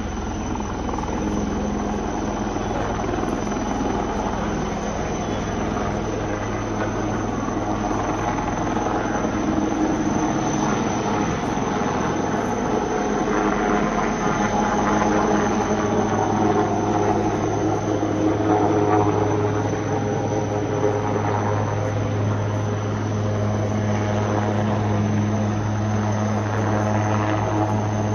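Helicopter engine and rotor running steadily and loudly, growing louder about halfway through.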